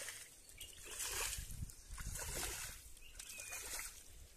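Muddy water being scooped from a shallow puddle with a small bowl and tossed out in splashes, about once a second.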